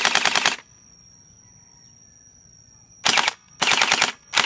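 Battery-powered gel blaster (Groza-replica water-bead toy gun) firing full-auto bursts of rapid, evenly spaced clacks. There is a half-second burst at the start, a pause of about two and a half seconds, two short bursts, and then a longer burst starting near the end.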